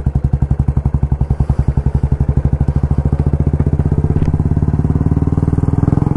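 Royal Enfield Classic 350's single-cylinder engine running on the move, its exhaust beat steady and slowly quickening as the bike picks up speed.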